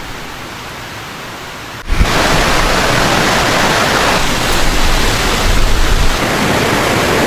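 Steady rushing wind noise with no distinct tones; it jumps abruptly much louder about two seconds in and stays loud.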